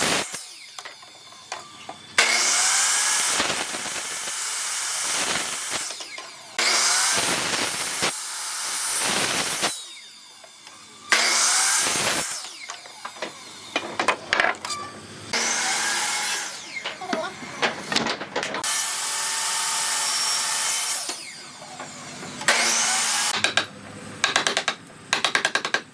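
Handheld power tool working wood, switched on and off in about seven bursts of one to three seconds each. A few sharp knocks come near the end.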